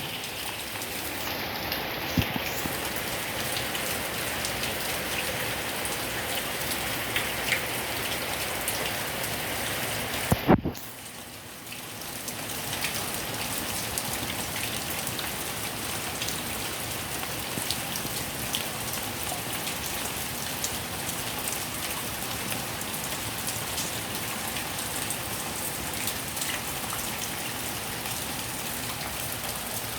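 Heavy rain pouring down steadily. There is a single sharp click about ten seconds in, and the rain is briefly quieter for a second or so after it.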